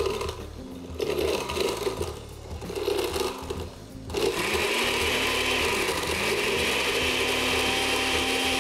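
Countertop blender running, blending ice into a slushy cherry limeade. For the first four seconds the sound is uneven and pulsing, then it settles into a steady whir.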